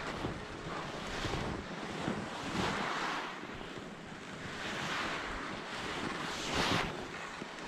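Skis scraping across packed snow in a series of short turns, the hiss swelling with each turn about every second or two, with wind rushing over the camera's microphone.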